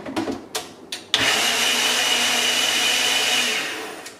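Ninja personal blender blending pancake batter. The motor starts suddenly about a second in after a few knocks from handling the cup, runs steadily with a high whine, then winds down near the end.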